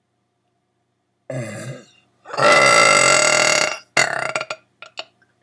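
A deliberate belch, long, loud and held at a steady pitch for about a second and a half, preceded by a shorter sound about a second in and followed by a few short trailing sounds.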